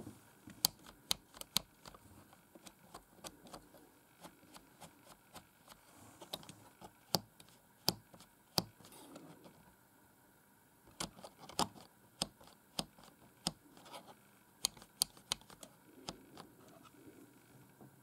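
The large Enter key of a Cherry G83-6105 (RS 6000 M) membrane keyboard being pressed over and over. Each keystroke gives a sharp plastic click, at irregular spacing of roughly two a second, with a short lull about halfway through.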